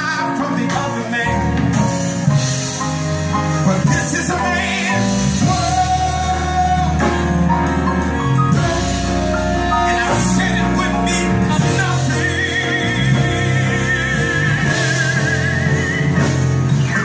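A small live band: a man singing to piano and guitar. In the last few seconds there is a long held note with vibrato.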